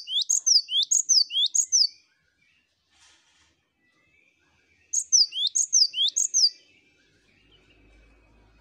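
Cinereous tit (gelatik batu) singing: two bouts of its repeated two-note phrase, a high falling note followed by a lower rising one, about two phrases a second. The first bout ends about two seconds in, and the second begins about five seconds in.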